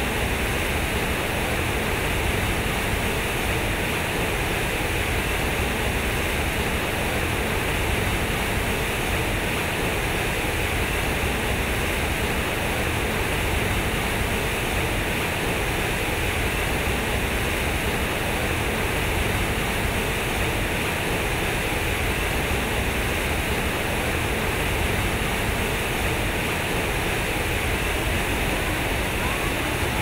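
Fountain water falling and splashing steadily into its pool, a constant rushing splash.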